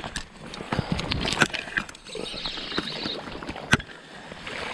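Water sloshing and splashing in the shallows as a hooked trout is played to the bank and a landing net is dipped into the water, with a few sharp knocks, the loudest nearly four seconds in.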